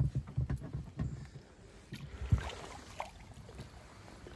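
A run of dull knocks and thumps from people and gear moving in a small fishing boat. The loudest comes right at the start and another strong one a little over two seconds in, and lighter clatters follow.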